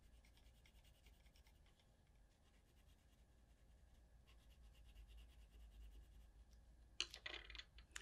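Faint scratching of a green coloured pencil shading back and forth on paper, with a few louder taps near the end.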